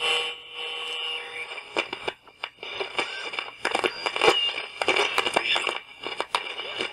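Electronic TV-static glitch sound effect: a dense crackle of sharp clicks over a few faint steady tones, like a detuned television or radio.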